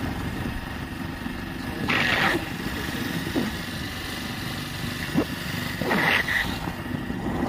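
Motorcycle running at road speed, heard from on the bike: a steady low engine and riding rumble. Two brief higher-pitched sounds stand out, about two seconds in and again about six seconds in.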